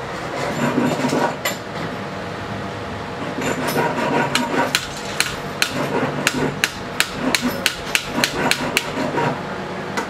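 Hand hammer striking a padlock body on a steel block: a quick run of sharp metal hammer blows, about three a second, in the second half, after some clatter of metal parts near the start.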